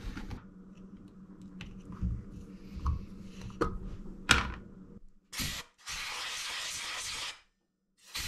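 Light clicks and knocks as the chainsaw's air-filter cover is lifted off, with one sharp click about four seconds in. Then a compressed-air blow gun hisses in three blasts, a short one, a steady one of about a second and a half, and another short one at the end, blowing out the carburetor compartment.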